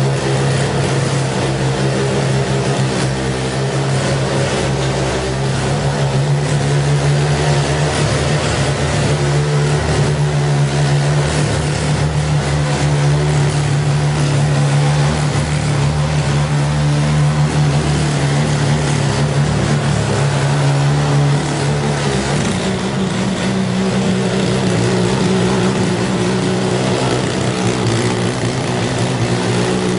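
The small engine of a 日農 308B cement cultivator running steadily, stepping up to a higher speed about 22 seconds in.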